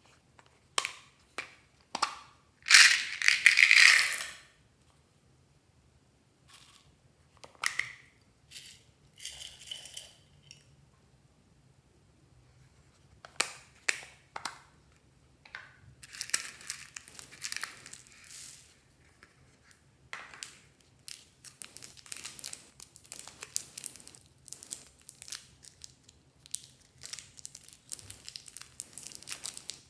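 A hard plastic tub handled with clicks and a loud rustling burst about three seconds in, then clear plastic wrapper crinkling over the last third as a wrapped piece is unwrapped.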